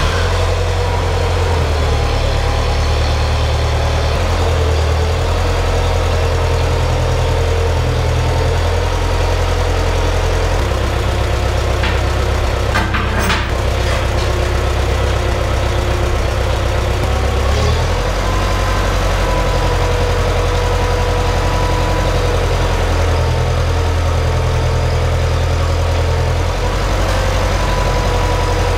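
Farmall 504 tractor's engine running steadily near idle, its note shifting briefly about two-thirds of the way through and again near the end. A short clank sounds about halfway.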